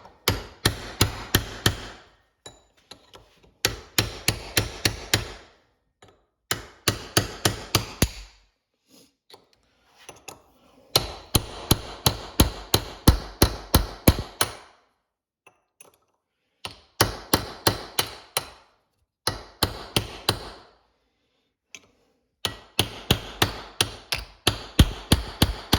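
Hammer striking a steel punch or chisel driven in behind an old transmission bushing to collapse it for removal: sharp metal-on-metal blows in runs of about four a second, broken by short pauses.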